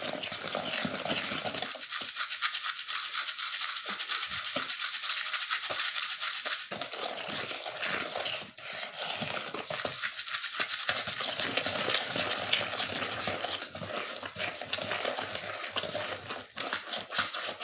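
Sugar scrub being stirred in a bowl: a dense, gritty scraping and rattling of sugar grains, with two short lulls partway through.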